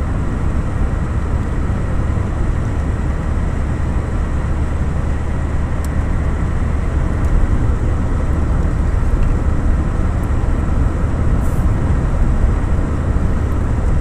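Steady low rumble of a car's engine and tyre noise heard from inside the cabin while driving, getting a little louder about halfway through.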